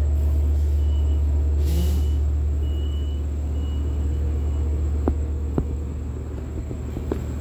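A Long Island Rail Road train of C3 bilevel coaches standing at the platform, with a steady low rumble. A short hiss of air comes about two seconds in, and a few sharp clicks come near the end.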